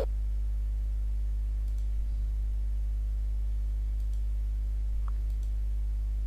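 Steady low electrical hum with a few faint computer mouse clicks spread through it.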